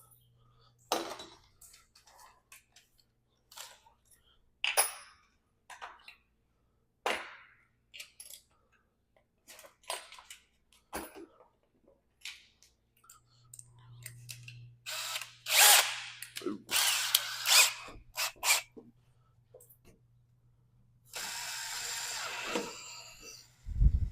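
Power drill boring out holes in a plastic lock part. First come a series of separate clicks and knocks. Then the drill runs in a few short bursts, and one longer run comes near the end.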